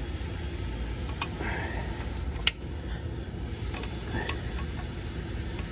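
Light metal clicks and taps, a handful spread irregularly, from a socket on an extension being turned by hand to thread a bolt in, with one sharper, ringing click about halfway through. A low steady hum runs underneath.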